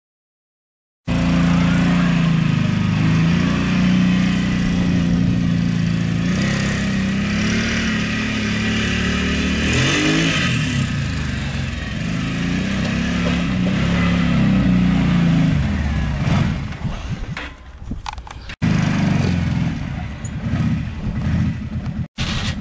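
2005 Arctic Cat 650 ATV's single-cylinder four-stroke engine running as the quad is ridden, its pitch rising and falling with the throttle. It starts about a second in and eases off near the end, with two abrupt cut-offs.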